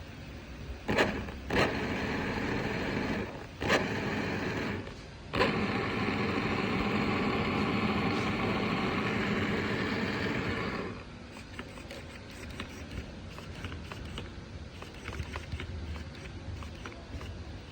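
Electric drive motor and gears of a disassembled MJX Hyper Go 16208 RC car whirring under throttle in three runs: two short bursts, then a longer run of about five seconds that cuts off suddenly.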